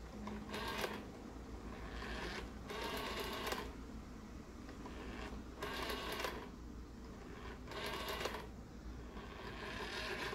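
Rotary dial of a 1975 East German RFT Variant telephone being dialled digit after digit: each time the finger wheel is let go it spins back on its spring with a quick whirring run of pulse clicks, several returns in a row a second or two apart.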